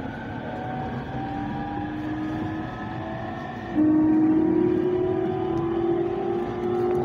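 Electric train's traction motors whining as it pulls away from a station and picks up speed, heard from inside the carriage over the rumble of the wheels. The whine has several tones that keep rising in pitch, and about four seconds in it steps up and becomes louder.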